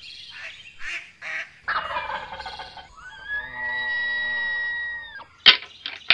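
A sequence of game-bird calls, goose-like honks and a turkey-like gobble, followed by a long, steady held call lasting about two seconds. Two sharp snaps come near the end.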